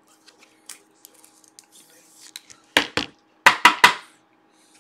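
Faint rustle of trading cards being handled, then hard, sharp clacks of cards knocked against a tabletop: two, then three in quick succession just past the middle.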